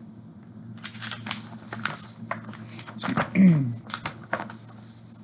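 Rustling and light knocks of a hardcover picture book being handled and its pages turned, with a short falling voice-like sound about three seconds in.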